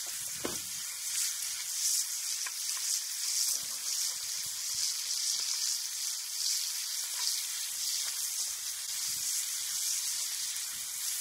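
Bacon frying, a steady high sizzle with scattered small pops as its fat renders out.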